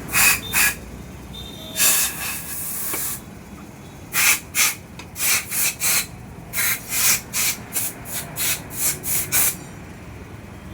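Compressed-air blow gun firing short hissing blasts: two quick puffs, a longer blast about two seconds in, then a rapid run of a dozen or so short puffs from about four seconds in until shortly before the end.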